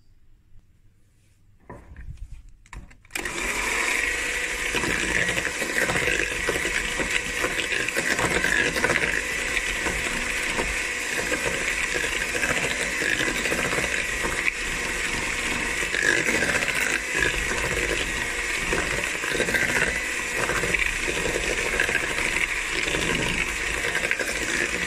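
Electric hand mixer switching on about three seconds in and then running steadily at one speed, its beaters whirring through a creamed butter-and-sugar mixture with egg and vanilla.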